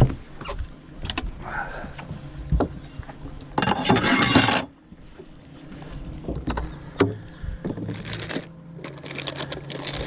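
Knocks, bumps and clatter of someone moving about on a fiberglass bass boat deck, with a loud rush of noise lasting about a second just before the middle. A faint steady hum comes in during the second half.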